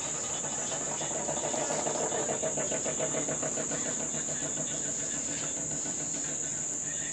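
Crickets chirping steadily in the night. A pulsing, engine-like hum swells in about a second in, is loudest around two seconds in, and fades out before halfway.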